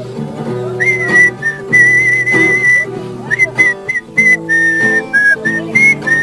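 A whistled tune, single notes stepping up and down with a slight waver, over strummed acoustic guitar chords.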